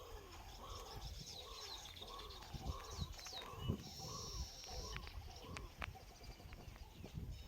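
Birds calling and chirping: one short call repeats about twice a second under higher, quicker chirps, over a low rumble with a few thumps.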